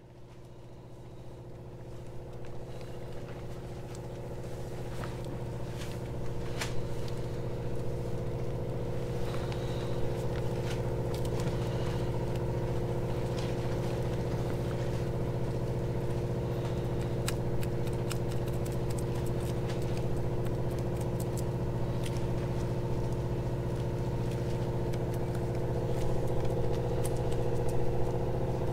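Steady mechanical hum of a running motor, fading up over the first several seconds and then holding level, with scattered light clicks and taps over it.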